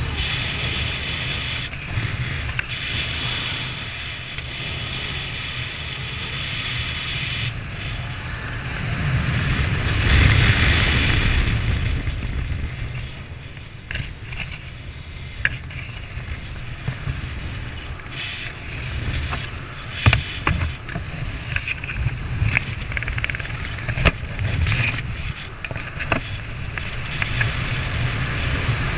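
Wind buffeting the microphone during a parachute descent under an open canopy, swelling about ten seconds in, with frequent sharp clicks and rustles in the second half.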